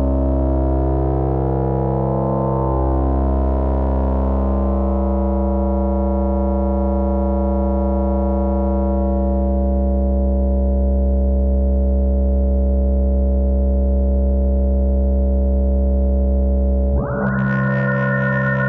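Eurorack modular synthesizer playing a sustained drone with a deep bass and many steady overtones. About two seconds before the end, a brighter, fast-pulsing layer comes in on top.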